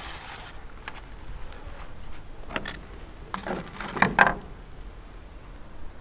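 Gloved hands pressing soil around succulents in a log planter: a few brief scuffs and soft knocks, the loudest pair about four seconds in.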